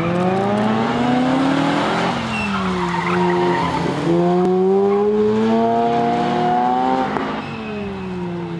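Mazda RX-8's rotary engine revving hard through an autocross run, its pitch climbing, falling back about two seconds in, climbing again and falling about seven seconds in. Brief tire squeal as it corners.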